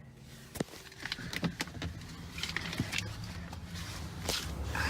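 Someone moving about a parked car: a few footsteps and sharp clicks and knocks of door handling, over a low steady rumble that starts about a second in.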